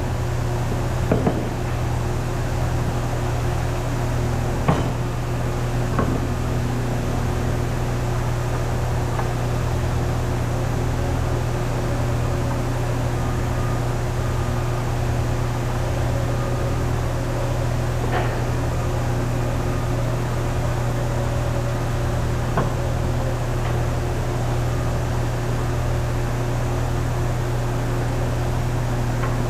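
Woodworking factory machinery running with a steady low hum and an even tone above it, with a few scattered sharp knocks.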